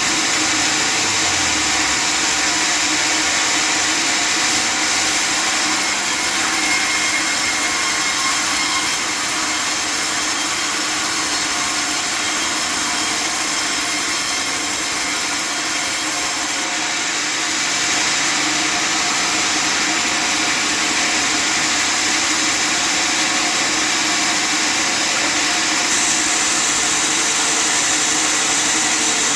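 Custom-built table sawmill running and sawing through wood, a loud, steady sawing noise over the drive engine.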